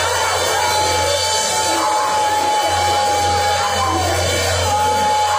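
Loud worship music in a church, played through PA speakers, with a long held high note that slides down at its end and comes again about every two seconds.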